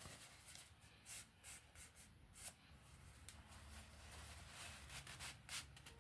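Faint rustling and brushing of a paper towel wiping silicone off a mixing stick, in a handful of short strokes.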